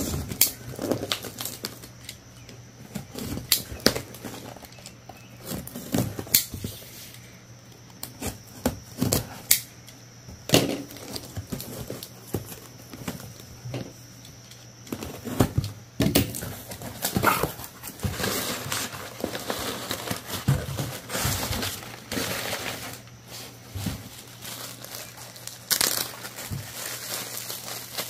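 A package being opened by hand: tearing and crinkling of packaging, with scattered sharp clicks and knocks from handling the box and its contents, and a longer stretch of rustling a little past the middle.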